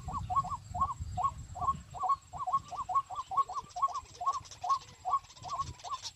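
A bird calling over and over, short hooked calls about three or four a second in a steady, unbroken series. Low rumbling handling or wind noise underneath fades after about two seconds, and a single low thump comes near the end.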